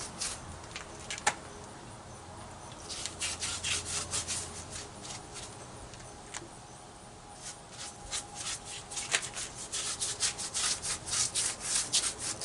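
A brush scrubbing liquid concrete bonding adhesive onto a rough, broken cement wall in runs of quick rubbing strokes, with a lull in the middle and the strokes coming fastest near the end.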